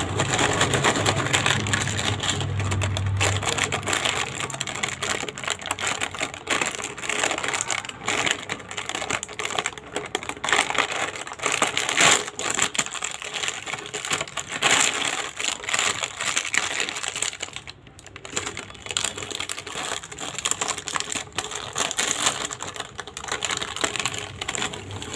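Foil-lined plastic snack packet crinkling and crackling as it is squeezed and turned in the hands, a dense uneven run of crackles.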